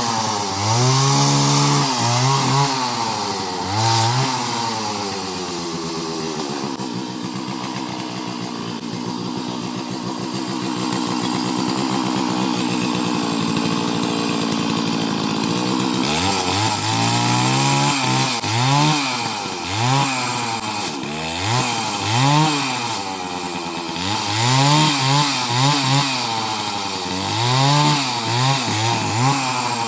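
Chainsaw engine revving up and down again and again, held at a fairly steady speed for about ten seconds in the middle, while it is used to cut a coconut.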